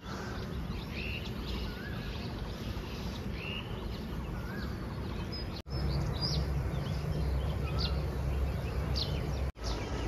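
Wild birds calling over a steady background of outdoor noise: scattered short chirps and whistles, with sharper downward-sweeping calls after about six seconds.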